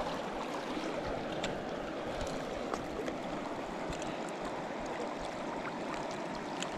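Shallow river water running steadily past, with a few faint splashes.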